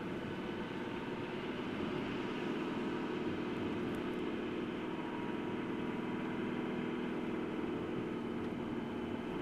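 Steady engine and road noise heard inside the cabin of a moving vehicle driving in city traffic.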